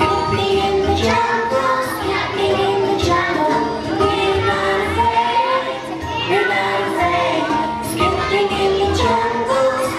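A group of young children singing together over an instrumental backing track.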